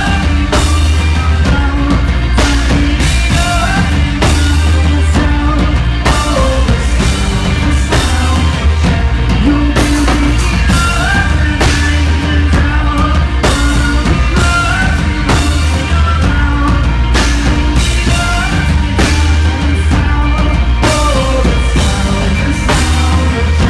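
Rock band music without vocals: a drum kit keeps a steady beat under bass and a melodic lead line.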